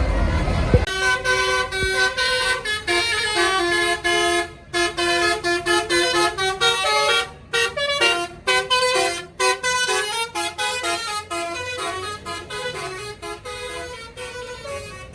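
Bus 'telolet' (basuri) musical horn playing a melody of quickly changing notes, with brief breaks between phrases, fading toward the end. A low rumble comes just before the horn starts, in the first second.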